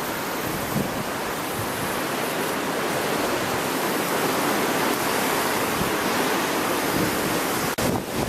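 Strong wind blowing across the microphone: a steady, even rushing hiss that briefly drops out near the end.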